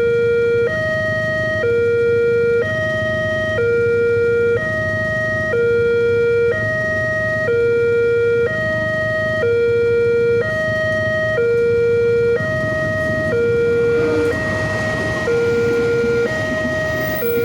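Railway level-crossing warning siren sounding a two-tone electronic alarm, switching between a lower and a higher note about once a second. From about 14 seconds in, a rushing noise joins it.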